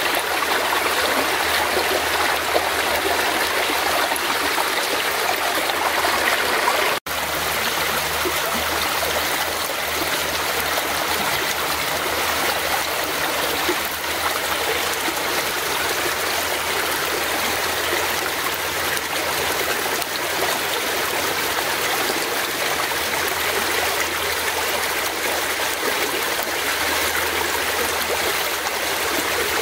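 Fast-flowing forest stream: steady rushing of running water. The sound breaks off for an instant about seven seconds in.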